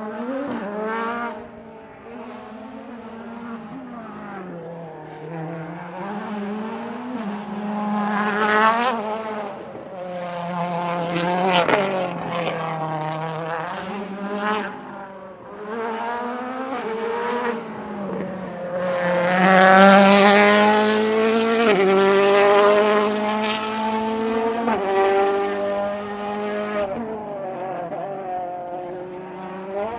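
World Rally Car with a 1.6-litre turbocharged four-cylinder engine driven hard on a mountain stage. The engine note climbs and drops again and again through gear changes and braking, getting louder to a peak about two-thirds of the way in as the car passes close.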